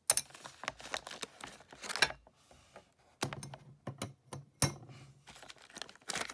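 New clutch plates and a plastic-bagged set of clutch springs being handled: plastic crinkling, with irregular sharp clicks and clatter from the parts.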